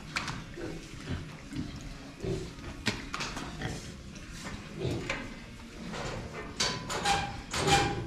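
Pigs grunting in their pens, with a few louder, sharper sounds near the end.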